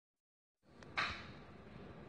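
A faint click and then a sharper click about a second in, over quiet room noise: a light-box sign being switched on.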